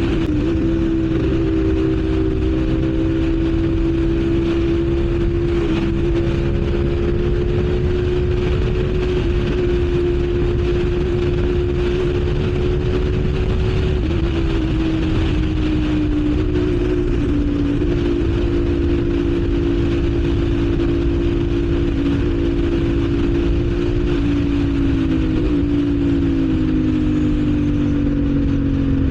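CFMoto 450SR's parallel-twin engine running at a steady high cruising rpm, with wind rushing past. Its pitch eases down a little about halfway through and again near the end.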